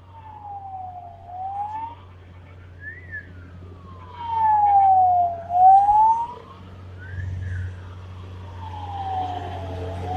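A vehicle siren wailing, its pitch sliding slowly down and back up about three times over the low hum of an idling engine. It is loudest in the middle.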